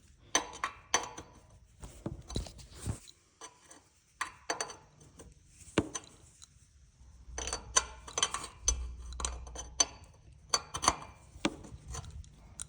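Metal wrench clinking and tapping against a fitting on a Honda GX630 engine as the fitting is loosened: irregular sharp metallic clicks with a short ring, in bunches, busier in the second half.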